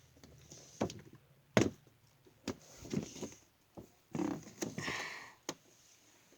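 Handling of a boxed toy truck and its packaging: scattered knocks and clicks of plastic and cardboard, with a sharp knock about a second and a half in and a patch of rustling around four to five seconds in.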